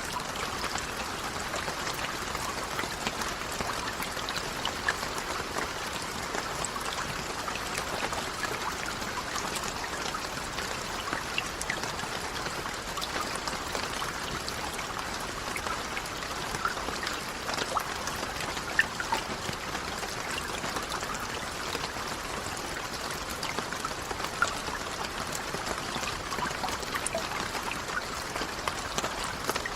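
Steady rain falling: a dense, even hiss of water with many small, distinct drop ticks and splashes scattered through it.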